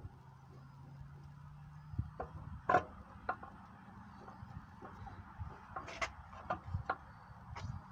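Wrench working at the hub of a McCauley propeller, giving a few scattered metal clicks and knocks. The loudest comes nearly three seconds in, and a quick cluster follows about six to seven seconds in.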